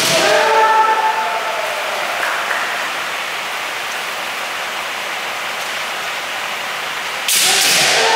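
Kendo sparring: a bamboo shinai strike cracks at the very start and is followed by a shouted kiai that falls in pitch and trails off. About seven seconds in comes another sharp shinai crack, followed by a second kiai shout. A steady hiss runs underneath throughout.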